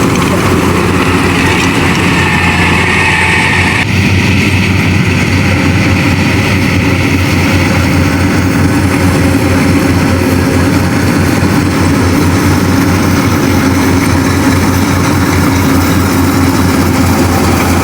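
Diesel engine and threshing machinery of a Yanmar AW70VW combine harvester running steadily with a constant low hum. A higher whirring stops abruptly about four seconds in.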